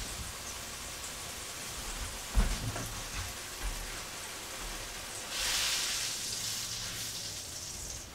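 Butter sizzling as it melts in a hot skillet, a steady frying hiss that grows louder and brighter about five seconds in. A single knock sounds a couple of seconds in.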